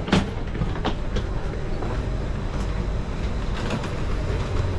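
Hard-shell suitcases being pulled from a train's luggage rack, giving a few sharp knocks and clatters in the first second or so, over the steady low rumble of the Eurostar train.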